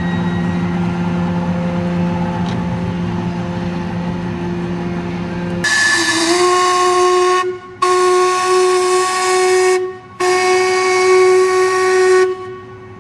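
Steamboat's steam whistle blowing three long blasts of about two seconds each, starting about halfway in. Before the blasts there is a steady low mechanical hum.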